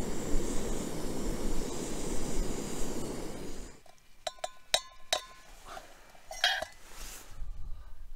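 Canister gas camping stove burner running steadily under a steaming metal pot, cutting off sharply about three and a half seconds in. Then several light metallic clinks that ring briefly, as the metal pot and its lid are handled, with a few softer handling sounds after.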